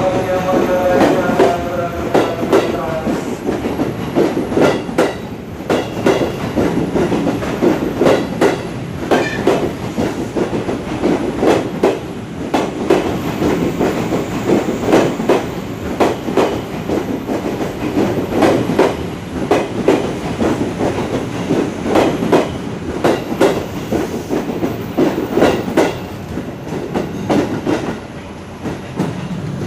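A train passing close by, its wheels clattering over rail joints in a long, irregular run of sharp clicks that eases a little near the end. A steady pitched sound is heard over the clatter in the first few seconds.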